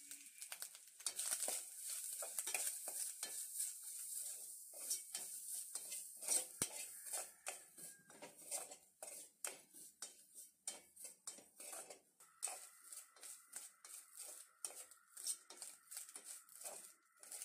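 A utensil scraping and knocking against a pan in quick repeated strokes, about two or three a second, as grated coconut is stirred and fried in ghee, with a light sizzle under it.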